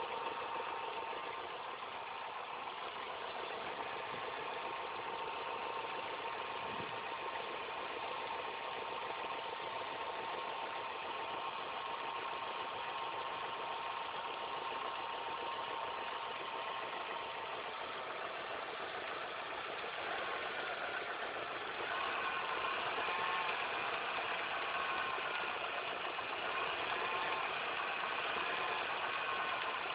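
Car engine idling, heard close to its timing-belt cover, with a steady whining tone over the running. This is the annoying noise that appeared after all the drive belts, the timing belt and the tensioner were replaced. It grows a little louder about twenty seconds in.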